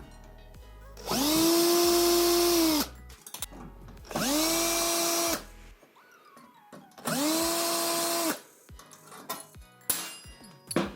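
Cordless drill-driver unscrewing bolts: its motor spins up, runs steadily and winds down in three bursts of about a second and a half each. A few short metallic clicks follow near the end.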